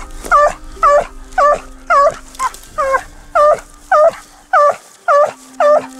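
Plott hound barking repeatedly and evenly, about two barks a second.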